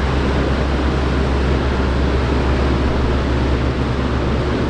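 Steady hum and whir of the cold storage's refrigeration machinery, a constant low drone under an even hiss.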